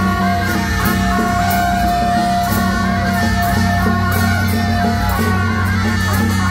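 Beiguan processional band playing: suona double-reed horns carrying the tune, with one long held note lasting about five seconds, over regular cymbal crashes.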